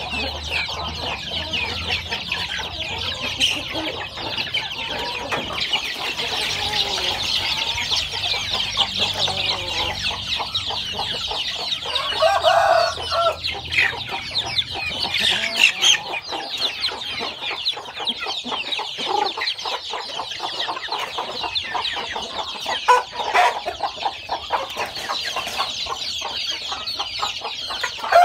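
A cage full of young chicks peeping nonstop, a dense chorus of short high-pitched cheeps. A lower, louder call from an older chicken breaks in about twelve seconds in and again at the very end.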